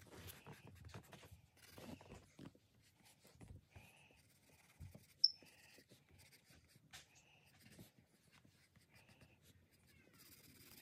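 Faint pencil scratching on sketchbook paper in short, repeated shading strokes. A single brief, high-pitched chirp stands out about five seconds in.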